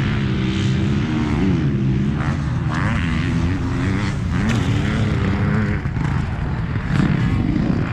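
Several motocross bike engines running on the track, their pitch rising and falling as the riders open and close the throttle.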